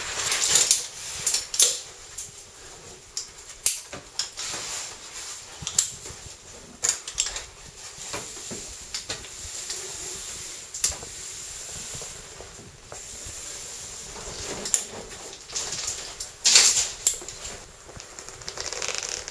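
A caver's rope-descent gear and suit on the rope: scattered metal clicks, clinks and scrapes, with rustling and a faint hiss, as she lowers herself down a narrow pit on a single rope.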